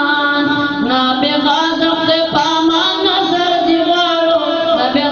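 One voice chanting unaccompanied in long, held notes that bend slowly in pitch: a religious chant with no instruments.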